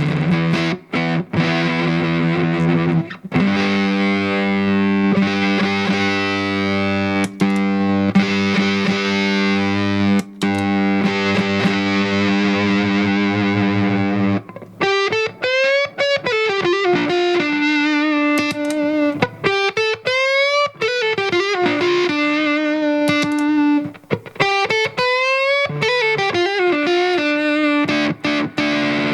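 Electric guitar played through a fuzz pedal, the tone thick and distorted. The first half holds low notes ringing on; about halfway it changes to single-note lines with string bends that glide up and back down, with a few short breaks between phrases.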